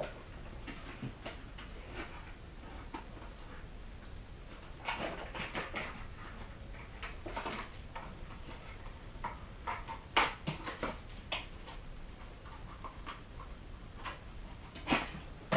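Small items being handled: faint scattered clicks, taps and rustles in small clusters, the sharpest knocks about ten seconds in and near the end.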